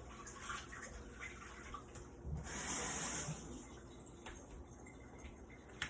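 A brief hiss lasting about a second, starting a little over two seconds in, among faint kitchen clicks and knocks.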